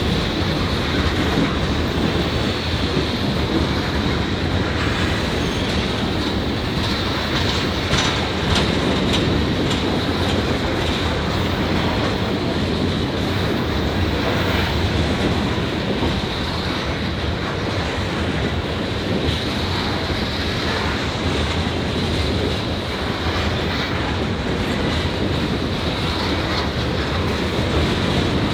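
Coal train cars rolling past steadily, their wheels clicking over the rail joints with some wheel squeal.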